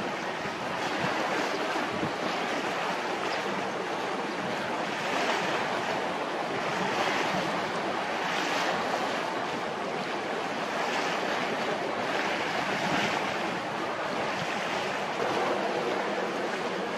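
Water washing and lapping in gentle surges every couple of seconds, with wind on the microphone.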